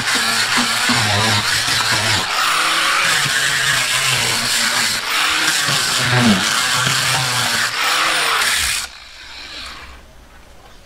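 Makita 5-inch angle grinder fitted with a sanding disc, sanding old paint off timber weatherboards: a loud, steady grinding that is cut off sharply near the end.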